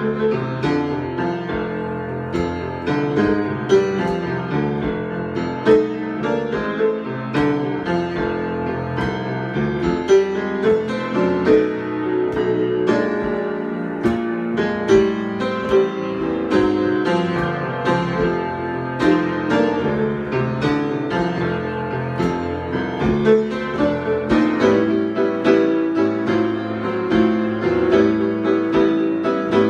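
Solo piano improvisation: a continuous flow of notes and chords.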